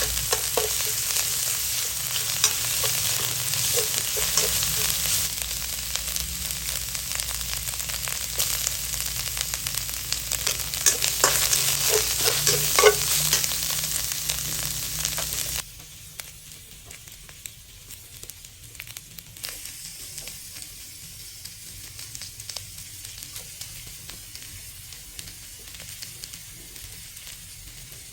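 Stir-fry sizzling loudly in a pan, with small clicks of stirring. About halfway through, the sizzle drops suddenly to a much quieter level and carries on.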